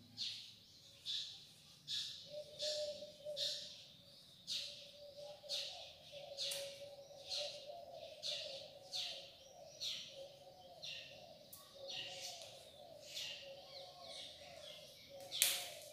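Marker pen squeaking and scratching on a whiteboard while words are written: short high-pitched strokes, about one or two a second, with a faint steady tone underneath from a couple of seconds in.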